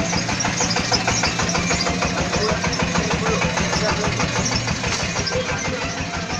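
An engine running steadily: a low hum with a fast, even pulse.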